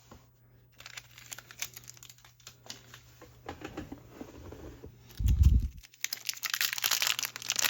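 Small plastic blind-box parts clicking and rustling as they are handled, a dull thump about five seconds in, then loud crinkling and tearing of a plastic packet being opened.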